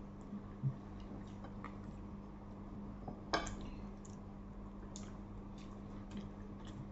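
Quiet eating at a table: faint ticks and soft taps of fingers and grilled eggplant on plates, with one sharper click about three and a half seconds in, over a steady low hum.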